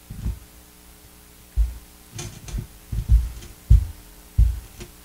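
A run of dull, low thumps and a few light taps from a tablet in a rugged case being handled and tapped at a desk, picked up close by the microphone, over a faint steady electrical hum.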